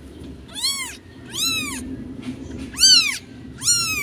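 A newborn kitten meowing while held in a hand: four high, thin calls, each rising and falling in pitch, about one every second.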